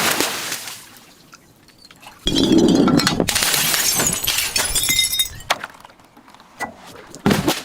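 A glass bottle breaking about two seconds in, its shards clinking and ringing for about three seconds, followed by scattered clinks of glass and another sharp crunch near the end.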